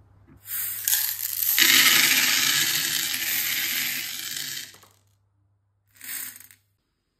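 Many small plastic beads pouring out and clattering onto a plate in a continuous rattle for about four seconds, with a brief second rattle near the end.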